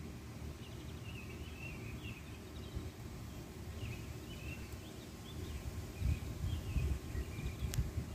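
Birds chirping in short, scattered calls over a steady low rumble, with a few louder low bumps about six to seven seconds in.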